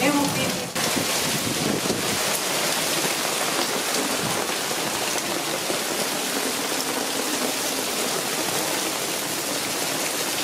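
A heavy downpour pelting steadily on terrace tiles and a wooden fence, with a stream of runoff pouring off a sun sail and splashing down.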